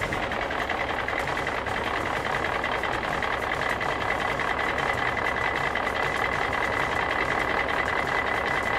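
Steady machine running sound with a constant high-pitched whine and a faint low pulsing, unchanging throughout.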